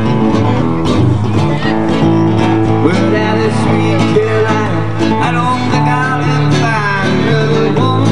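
Live guitar music from a duo, an amplified guitar and an acoustic guitar, with sustained low notes under a lead line whose notes bend in pitch.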